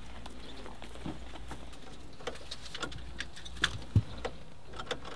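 Scattered light clicks and knocks of someone climbing into a truck cab and handling the controls, with a sharper knock about three and a half seconds in and a thud just after.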